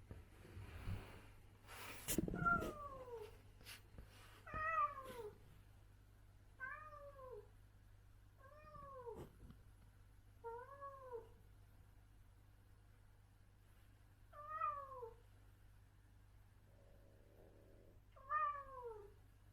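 Adult domestic cat meowing repeatedly: seven separate meows, roughly every two seconds with a longer pause partway through, each rising and falling or sliding down in pitch. Some rustling and a few clicks come before the first meow.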